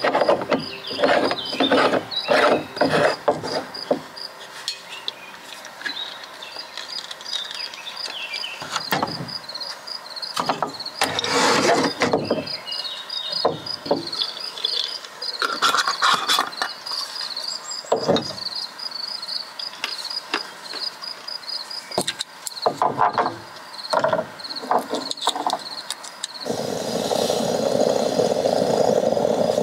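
An insect chirping in a steady, rapid pulse, over scattered knocks and clatter. About three seconds before the end, a steady rushing noise comes in and becomes the loudest sound.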